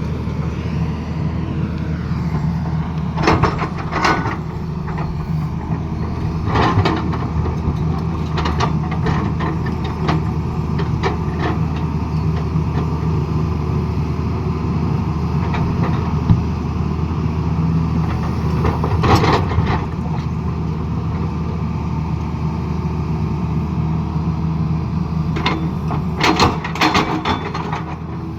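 Excavator's diesel engine running steadily, with occasional sharp metallic clanks at irregular moments and a cluster of them near the end.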